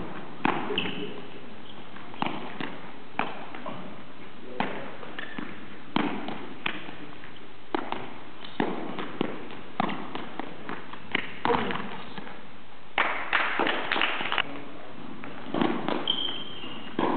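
Footbag net rally: the footbag being kicked and players' feet landing and stepping on the court, heard as sharp thuds at irregular intervals that come in a quick cluster about thirteen seconds in, with a couple of brief high squeaks.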